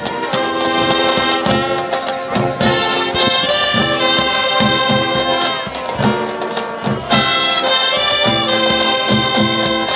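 High school marching band playing, brass holding loud chords over regular drum beats.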